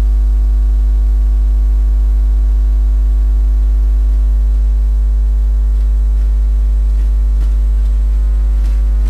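Loud, steady electrical hum with a deep 50 Hz buzz and a long stack of overtones, holding the same level throughout. A few faint clicks come through in the last few seconds.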